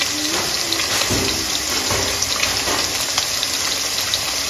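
Fish steaks frying in hot oil in a pan: a steady sizzle with small crackles and pops.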